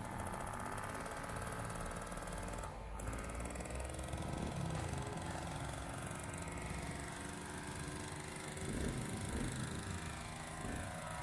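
Small moped and step-through motorcycle engines running with a rapid putt-putt beat, rising and falling in pitch as they are revved.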